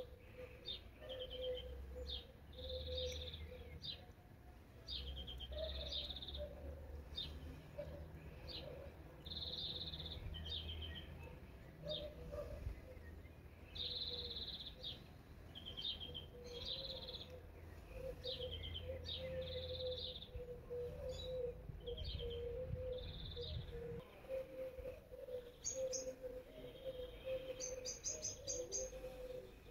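Small songbirds chirping and trilling, short calls repeating every second or so, over a low rumble that drops away near the end.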